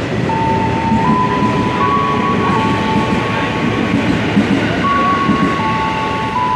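Train moving through the station: a steady rumble of wheels on rails, with steady whining tones that step up and down between a few pitches.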